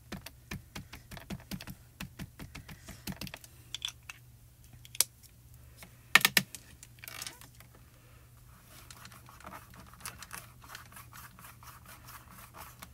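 Quick light taps of a small dye ink pad being dabbed onto a clear photopolymer stamp, then a sharper double knock about six seconds in, and fainter scattered taps near the end.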